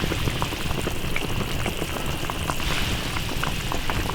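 Lamb pieces cooking in a wok with their seasonings, a steady bubbling and sizzling full of small irregular pops.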